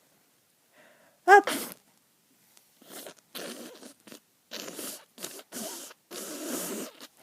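A person with a cold sneezing once, loudly and suddenly, about a second in. Several short, noisy breaths follow.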